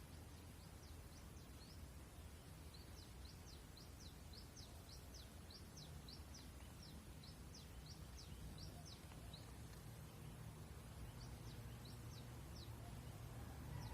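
Faint, rapid, high chirping from a sparrow: short falling chirps several times a second, in runs with brief pauses, over a low steady hum.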